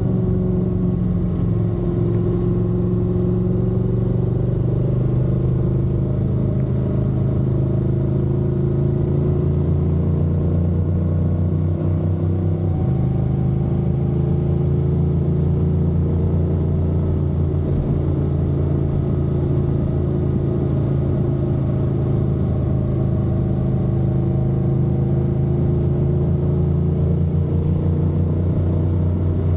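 Honda NC750X's parallel-twin engine running steadily while riding, its pitch dropping to a new level about halfway through.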